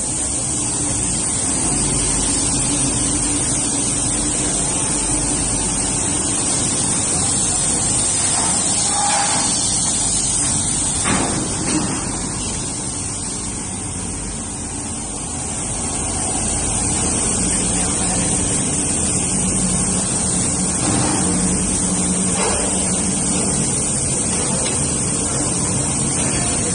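Industrial stainless-steel kitchenware tunnel washer-dryer running: a steady rushing hiss of high-pressure water spray and drying blowers over a low motor hum. A couple of short knocks come partway through.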